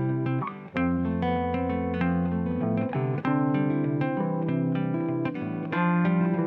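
Background music led by plucked guitar over a bass line, steady in level, with a brief dip about three-quarters of a second in.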